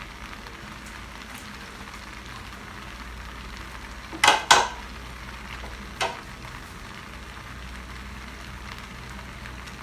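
Spaghetti and vegetables sizzling steadily as they are stir-fried in oil in a pan. Three sharp clanks of the stirring utensil against the pan: two loud ones in quick succession about four seconds in, and a softer one about two seconds later.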